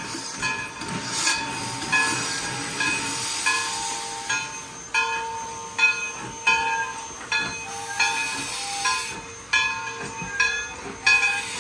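East Broad Top No. 16, a narrow-gauge 2-8-2 steam locomotive, moving off slowly with a steady rhythm of exhaust beats, about one and a half a second, over steam hissing from around its cylinders.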